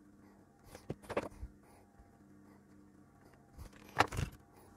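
Light workbench handling while soldering: a few soft clicks about a second in and a sharper knock about four seconds in, over a faint steady hum.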